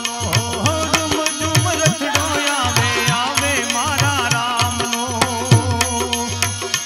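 Gujarati devotional folk music: a melody with quick, bending ornaments over a steady hand-drum beat.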